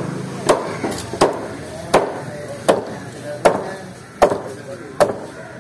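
A heavy knife chopping through a large fish onto a wooden block: seven hard, evenly spaced strokes, a little more than one a second.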